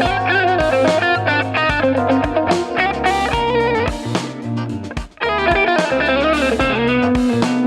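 Electric guitar with newly installed Wilkinson high-output ceramic pickups, played in a tone test: a run of changing notes and chords, broken off by a short gap about five seconds in before the playing picks up again.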